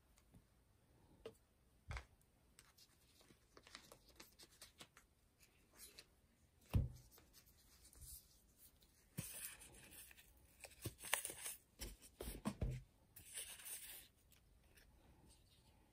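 Hands handling thin plastic screen-protector film and its backing sheets: faint rustling and crinkling, heaviest in three bursts in the second half, with scattered light taps and a sharper knock about seven seconds in.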